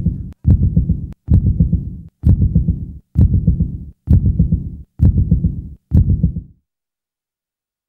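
Dance-music soundtrack ending on a repeated deep bass pulse, about one a second, each with a sharp click at its start. It cuts off abruptly about six and a half seconds in.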